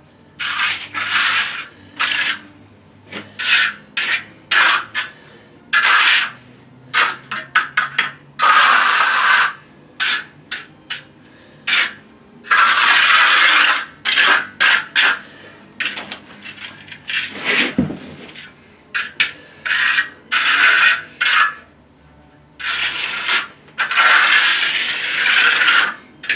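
A shovel blade scraping as dirt is scooped up for backfill, in repeated strokes of a second or two each, with short clicks and knocks between them.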